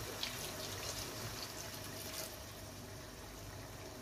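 Water poured from a small steel cup into a hot pot of frying minced meat, potatoes and peas, lasting about two seconds, followed by the mixture simmering quietly.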